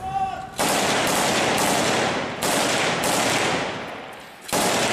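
Close rifle gunfire, about five loud shots a second or so apart. Each rings on in a long echo that slowly fades.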